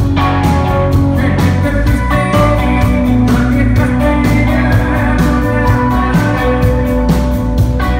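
Rock band playing live: drums keep a steady beat under sustained electric guitar chords.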